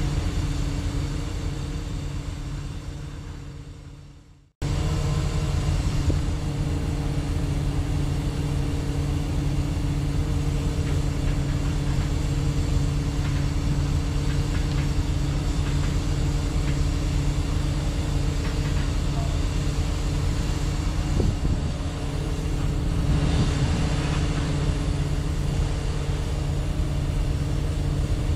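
Diesel engine of a mobile crane running steadily at a constant pitch. About four seconds in, the sound fades away, drops out for a moment, then comes back abruptly and carries on unchanged.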